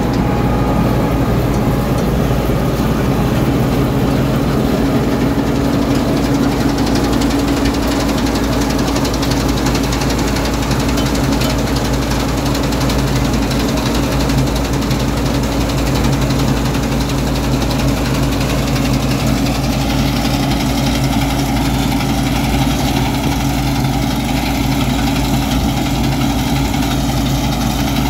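John Deere combine harvester running steadily while it picks up windrowed seed grass with a belt pickup header: a constant engine note with machinery noise over it, unchanging throughout.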